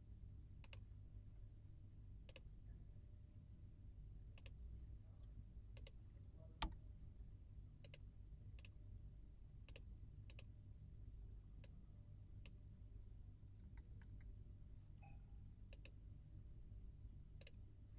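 Faint computer mouse clicks, about a dozen at irregular intervals, over a low steady hum.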